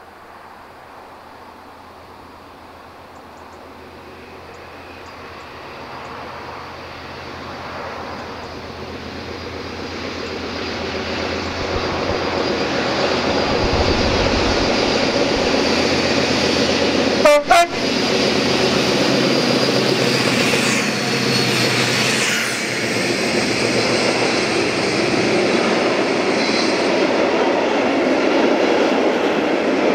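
Diesel locomotive approaching under heavy power, its engine note building steadily louder until it passes close by with wheel and rail noise. About halfway through it sounds two very short horn blasts in quick succession.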